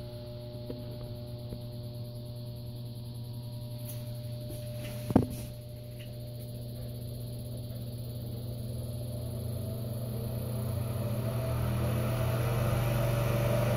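Bathroom ceiling exhaust fan running with a steady electrical hum that grows steadily louder through the second half. A single sharp knock about five seconds in.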